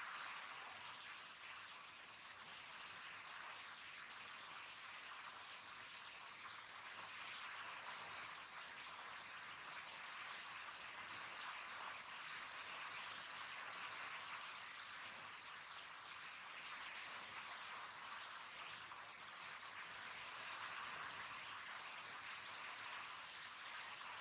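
Heavy rain falling steadily on wet paving, an even hiss, with one small click near the end.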